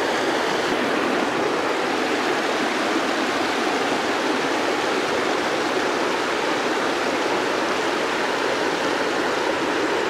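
Water rushing over a dam spillway and churning through the whitewater below it: a steady, unbroken rush.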